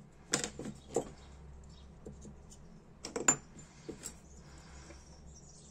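Small metal hand tools clinking on a workbench as they are set down and picked up: a few short sharp clicks, with the loudest cluster about three seconds in.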